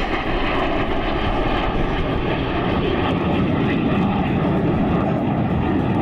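Jet engine noise from the Suryakiran team's BAE Hawk jet trainers flying over, a steady loud rushing sound with a low rumble and no clear rise or fall.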